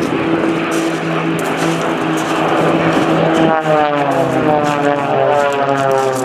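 Piston engines and propellers of Extra 300 aerobatic planes flying in formation, a steady droning hum. About three and a half seconds in, as the formation breaks apart, several engine tones slide steadily lower in pitch.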